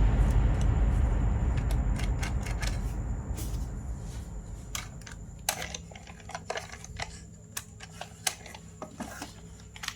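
Irregular light clicks and taps, like small plastic parts or packaging being handled, over a low hum that fades away through the first half.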